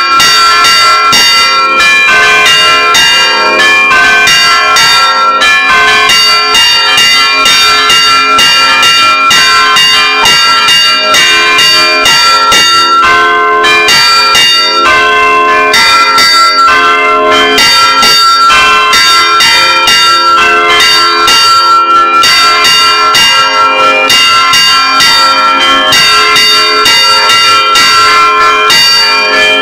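Church bells rung in a repique: several bells struck rapidly and continuously by rope-pulled clappers, a dense festive peal of many overlapping ringing tones. It is very loud, heard close up inside the belfry.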